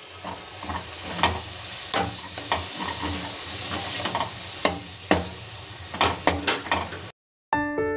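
Chopped tomatoes and onion masala sizzling in hot oil in a kadhai while a metal spatula stirs and scrapes through them, with sharp clicks of the spatula against the pan. Near the end the sizzling cuts off, and soft piano music begins after a brief gap.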